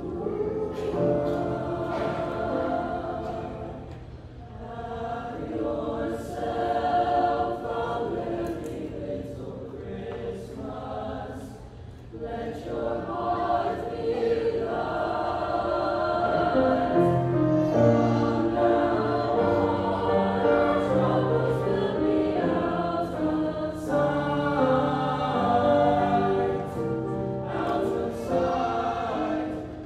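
Mixed-voice choir singing with grand piano accompaniment, softening briefly about four and twelve seconds in, then swelling fuller and louder for the rest.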